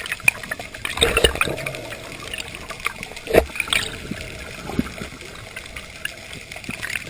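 Moving water with irregular small splashes and clicks, the loudest about three and a half seconds in.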